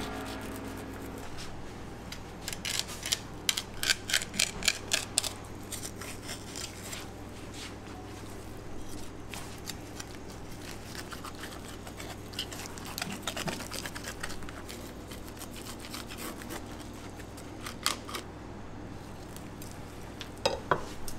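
Long knife sawing through a large bluefin tuna's skin and flesh: a quick run of about ten crisp scraping strokes, about three a second, a few seconds in, then occasional single scrapes.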